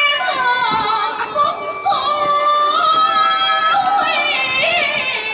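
A woman singing in a traditional Vietnamese style, with sliding, wavering, ornamented notes over live traditional instruments.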